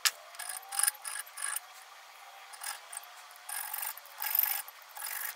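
Round needle file rasping across the edge of a small steel knife-handle spacer held in a vise, in short, uneven strokes that cut a decorative filed pattern. A sharp tap comes right at the start.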